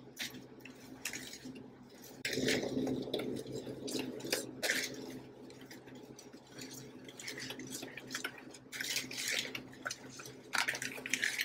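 Seasoned flour and cornstarch being mixed by hand in a bowl: irregular swishing and rubbing strokes, with the hand brushing and scraping against the bowl's side.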